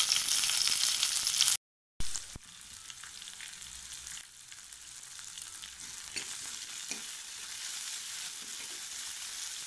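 Sliced onions sizzling loudly in hot oil in a nonstick kadai just after going in; the sound cuts off abruptly about a second and a half in. After a short gap a softer, steady sizzle goes on, with a steel ladle stirring and scraping the onions in the pan.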